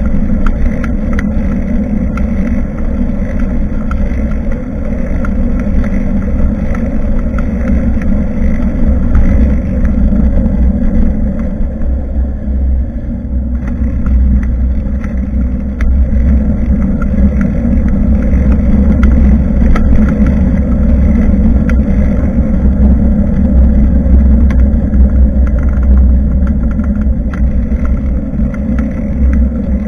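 Riding noise on a bicycle-mounted action camera: a steady low rumble of wind buffeting the microphone and tyres rolling, with scattered sharp clicks and rattles from the bike.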